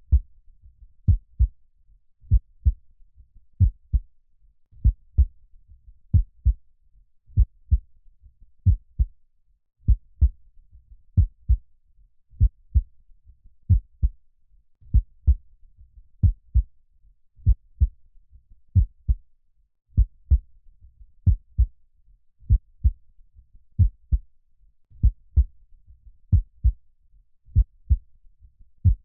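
Heartbeat beating slowly and steadily in even lub-dub double thumps, about 48 a minute.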